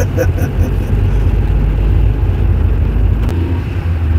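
Toyota car under way with its five-speed robotized gearbox, heard from inside the cabin: steady engine and road hum, with a single sharp click about three seconds in.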